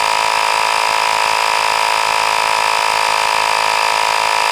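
Small 12-volt portable tire inflator's piston compressor running steadily under load, pumping up a truck tire: an even, high-pitched drone with no sign of straining.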